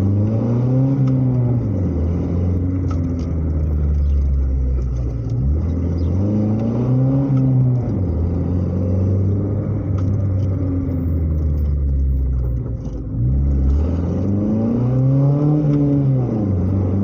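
Chevrolet Chevy's four-cylinder engine running through a modified exhaust: a glasspack-style muffler in place of the resonator, an open pipe and a round tip. Engine speed rises and falls three times, with steady running in between and a brief drop in level about two-thirds of the way through.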